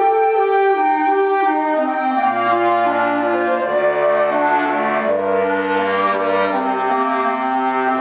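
Woodwind ensemble of flutes, clarinets and bass clarinet playing a slow piece in sustained chords, with notes held a second or two each over a low bass clarinet line.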